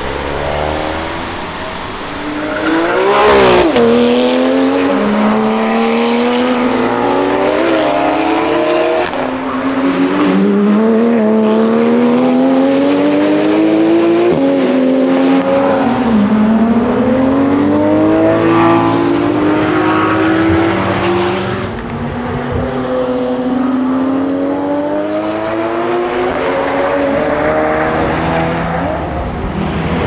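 Ford Focus RS's turbocharged 2.3-litre four-cylinder engine being driven hard through the gears, its pitch climbing in each gear and dropping back at every upshift, again and again. About three seconds in the car passes close by with a quick rise and fall in pitch.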